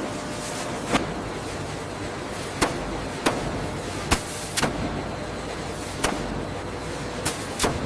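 Steady machinery noise with about eight sharp knocks at irregular intervals, two of them close together near the end.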